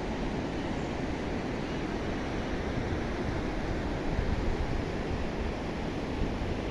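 Steady rushing wind noise buffeting the microphone, a little stronger in a gust about four seconds in.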